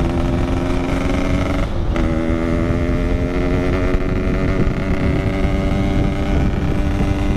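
Yamaha RX-King's single-cylinder two-stroke engine running steadily through a 'packing power' aftermarket exhaust, very loud. The note breaks off briefly about two seconds in, then carries on.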